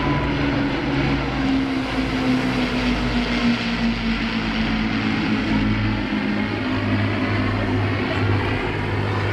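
Propeller aircraft engine drone from a display plane in flight, its pitch sliding slowly down over the first few seconds and then holding steady.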